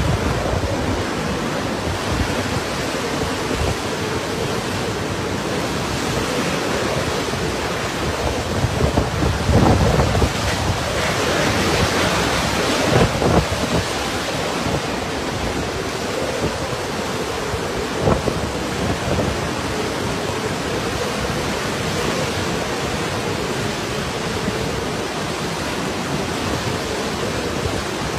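Typhoon-force wind and heavy rain: a dense, steady rushing noise that swells in stronger gusts about a third of the way through.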